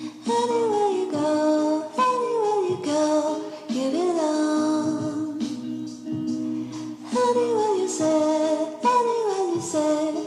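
A song with a high voice singing a melody over steady backing music.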